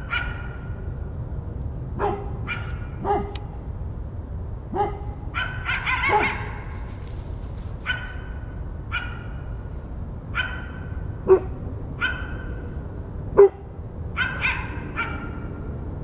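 A coyote and a dog barking back and forth: about a dozen pitched barks, roughly one a second, some short and sharp and some a little drawn out, with the two loudest near two-thirds of the way through.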